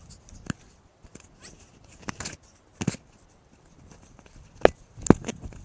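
Footsteps and hands scrambling through dry brush and leaf litter on a steep slope: irregular crunches, snaps of twigs and scrapes, with two sharper cracks near the end.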